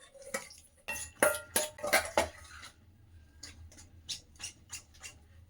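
Kitchen utensils clinking and clattering against dishes and bowls while cake ingredients are handled: a cluster of loud knocks about a second in, then lighter taps at a fairly even pace.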